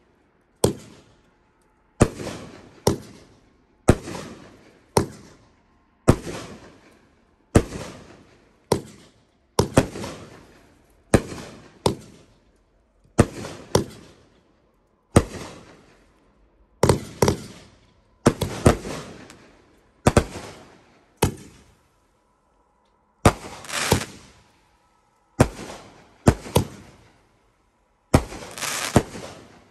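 Consumer aerial fireworks firing in succession: a steady string of sharp bangs, about one a second and often in close pairs, each trailing off in echo, with a short pause about 22 seconds in.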